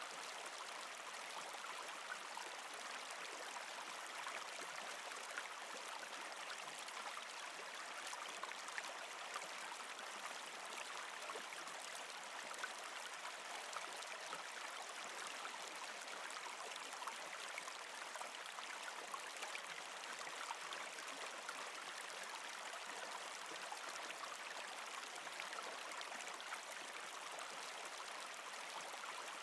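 Small stream flowing steadily through a rocky channel, a constant even rush of water.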